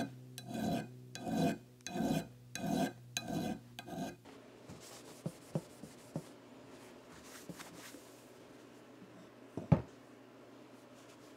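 Small hand file rasping across the cut end of a steel leadscrew shaft, about seven even strokes in four seconds as the end is filed flat. Then faint rubbing and a few light clicks, and a single sharp knock near the end.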